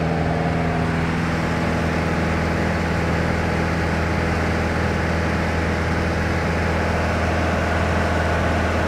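Light touring aircraft's engine and propeller droning steadily in flight, heard from inside the cabin.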